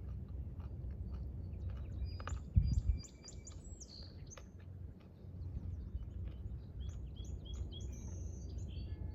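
Small birds chirping in marshland, with many short high calls in quick runs, over a steady low rumble. A brief low thump comes about two and a half seconds in.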